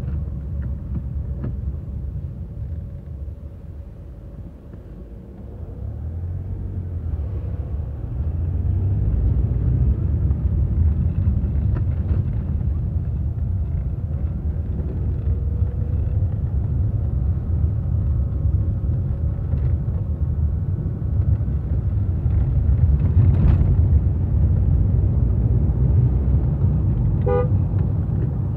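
Car road noise heard from inside the cabin: a low engine and tyre rumble that dips briefly, then swells as the car speeds up. Near the end a car horn gives one short toot.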